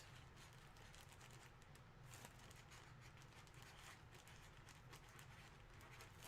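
Near silence with faint, scattered clicks and rustles, like light handling of packaging.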